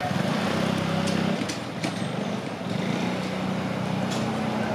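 A motor vehicle's engine running steadily, a low drone with a few faint clicks.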